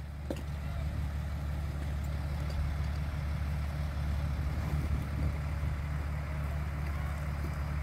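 Vehicle engine running steadily with a low, even hum.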